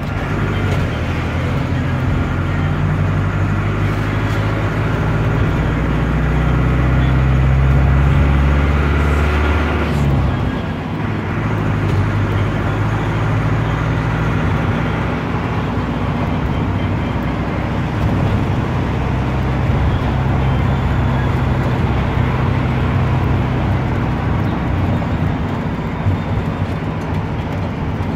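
Air-cooled Deutz F4L912 four-cylinder diesel of an Otokar M-2000 minibus, heard from inside the cab while driving. The engine note climbs steadily for about ten seconds, falls away sharply, then settles into a steady run.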